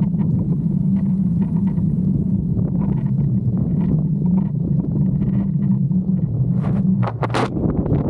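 Strong wind buffeting the microphone: a loud, steady low rumble, with a few short sharp noises about seven seconds in.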